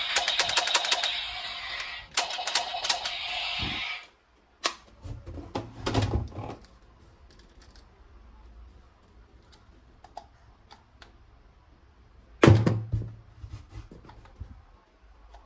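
A toy gun's rapid-fire clicking rattle for about four seconds, cutting off suddenly. Then come scattered plastic knocks and thumps of toys being handled, the loudest thump about twelve seconds in.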